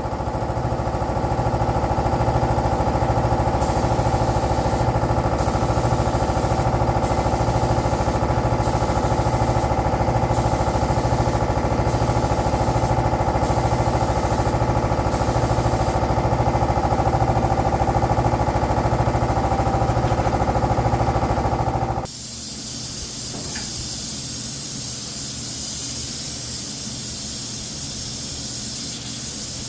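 Air-fed spray gun applying Cerakote, its air hissing in short on-off passes, over the steady hum of a running air compressor. About two-thirds of the way through the compressor cuts off suddenly, leaving a steady hiss of spraying air.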